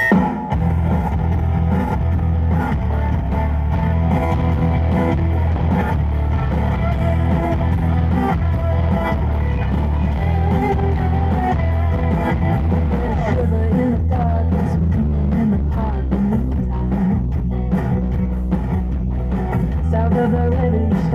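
Loud music with guitar and a heavy, steady bass.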